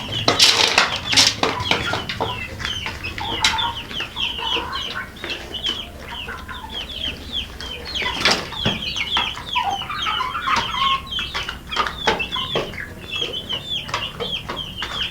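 A flock of laying hens and broiler chickens feeding: a constant run of short, high-pitched peeps and clucks, mixed with frequent sharp taps of pecking at the feed.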